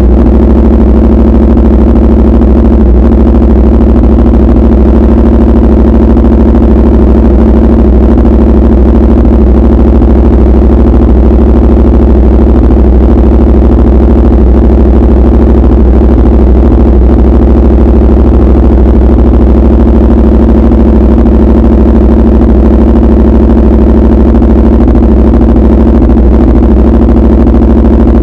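Motorcycle engine idling steadily through an SC Project aftermarket exhaust, loud, at one unchanging pitch throughout.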